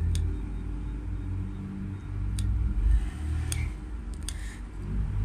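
Low steady background rumble with a faint hum and a few faint, scattered light clicks.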